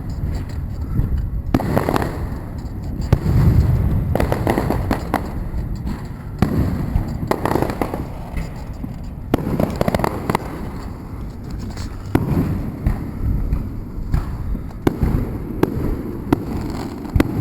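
Fireworks display going off: a string of deep booms and sharp cracks, one every second or so, over a continuous low rumble.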